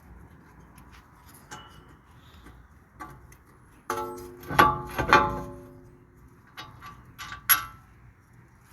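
Metal-on-metal knocks and clinks of hand tools working on a car's front wheel hub assembly. Light clicks run throughout, with a few sharp, ringing metal strikes about four to five seconds in and another near the end.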